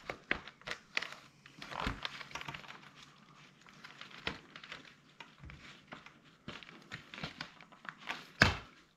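Plastic frame pieces and rails of a pleated caravan blind being handled and clipped together on a stone benchtop: a run of light clicks, knocks and rustles, with one louder knock near the end.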